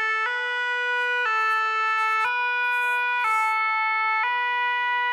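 French fire engine two-tone siren (deux-tons), alternating steadily between a lower and a higher note about once a second.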